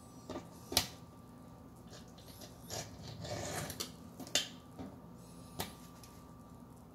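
Fillet knife trimming a jack fillet on a plastic cutting board: scattered sharp clicks and taps of the blade against the board, the loudest just under a second in and again about four and a half seconds in, with a short stretch of scraping about three seconds in.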